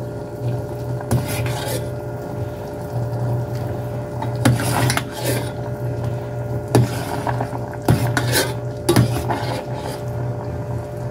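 Metal spoon scraping and clinking in a steel pot as boiled pork wontons are scooped out of the water, in a string of separate clinks over a steady low hum.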